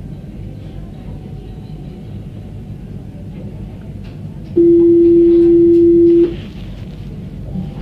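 A tram's door-closing warning: one steady electronic beep, a little under two seconds long, starting about four and a half seconds in, over the low rumble of the tram standing at the stop.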